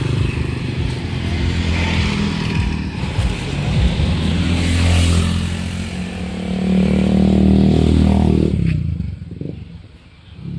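Road traffic going past close by: motorcycles and cars running along the street, with one engine's note falling in pitch as it passes about eight seconds in. The traffic noise then drops away sharply near the end.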